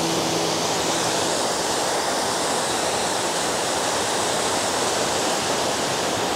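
Steady rushing of a waterfall: an even, unbroken noise of falling water.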